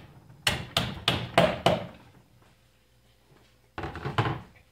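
Hammer driving small nails into a wooden drawer: five quick strikes in just over a second. Near the end come a few lighter knocks as the hammer is set down on the table.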